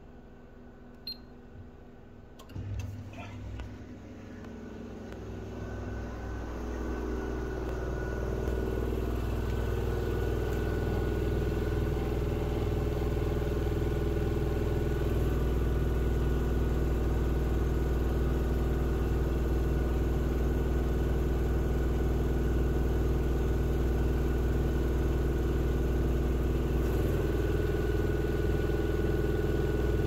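Miele front-loading washing machine running, its drum turning with a steady mechanical hum and a thin high whine. The hum builds over the first several seconds, then holds steady. A couple of light clicks come just before it.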